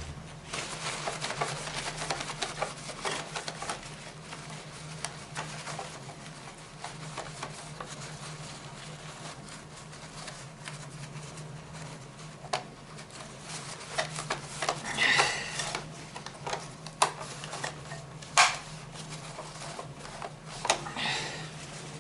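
Paper towel wiping and rubbing over the plastic body of a Roomba robot vacuum, with scattered clicks and a few louder knocks as the plastic is handled, over a steady low hum.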